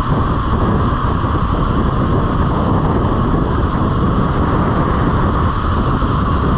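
Steady, loud riding noise from a motorcycle at road speed: wind rushing over the microphone mixed with engine and road rumble.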